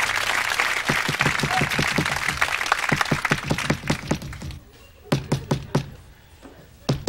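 Studio audience applause fading out as rapid, insistent knocking on a door starts about a second in, about five knocks a second; after a pause come a group of four knocks and then two more near the end.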